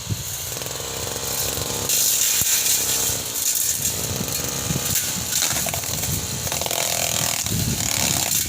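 Engine-driven brush cutter with a steel blade running, getting louder about two seconds in and staying loud.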